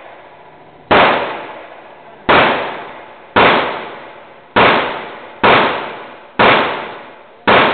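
.357 Magnum revolver fired seven times in steady succession, about a second between shots, each shot sharp and loud with an echoing tail in an indoor range.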